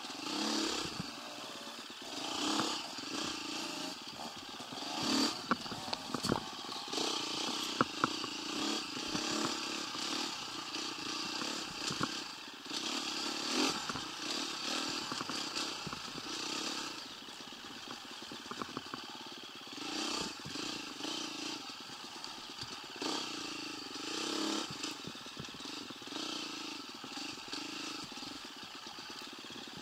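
125 motorcycle engine running as it is ridden, its sound rising and falling, with scattered knocks and clatter throughout.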